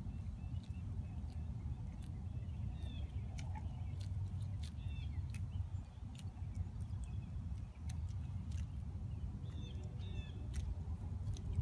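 Outdoor ambience: a steady low rumble, with short bird chirps a few times and scattered sharp clicks.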